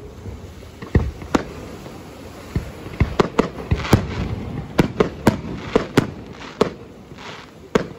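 Fireworks display, aerial shells bursting overhead: a rapid, irregular series of sharp bangs, more than a dozen, sparse at first and coming thick and fast from about three seconds in.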